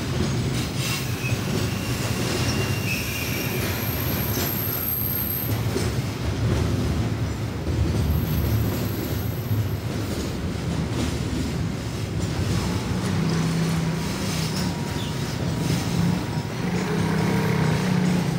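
Container wagons of a freight train rolling steadily past on the rails: a continuous low rumble of steel wheels with scattered clacks, and a thin high-pitched wheel squeal that comes and goes in the first half.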